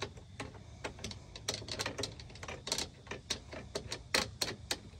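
Irregular sharp plastic clicks and taps as a YakAttack TracPak's plastic mounting base is worked into a kayak's gear track by hand, a few louder clicks in the middle and near the end.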